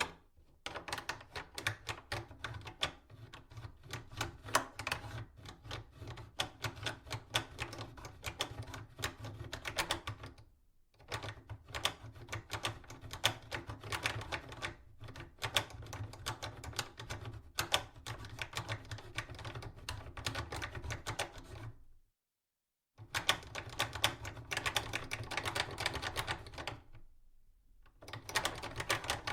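Metal door latch being forced back and forth: a rapid, continuous run of sharp mechanical clicks and rattles, broken by a few short pauses, one of them a moment of complete silence.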